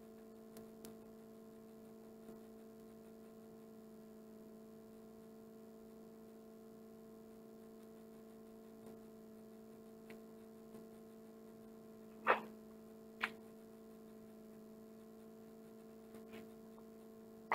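Steady electrical hum with a low tone and its overtones, with two short sharp clicks about twelve and thirteen seconds in and a few fainter ticks.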